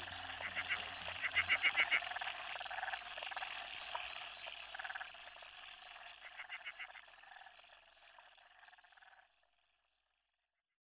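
A chorus of rapid, pulsing animal calls, loudest near the start, that fades away and stops about nine seconds in.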